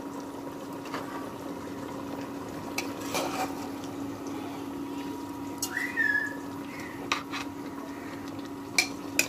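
A metal ladle stirring and turning chunks of meat and spices in a cooking pot, with a few scattered clicks and scrapes against the pot over a steady hum.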